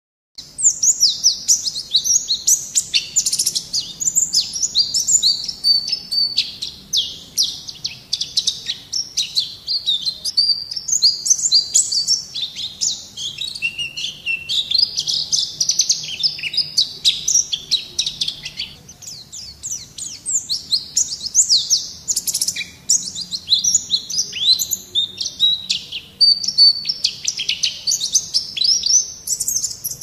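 White-eye (pleci) singing in a long, almost unbroken stream of rapid, high-pitched twittering chirps and trills, starting a moment in after a brief silence.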